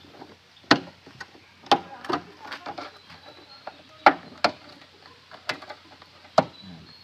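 Suzuki Celerio's plastic door-sill trim being pulled off by hand, its clips snapping loose and the plastic knocking in a string of about eight sharp clicks and knocks.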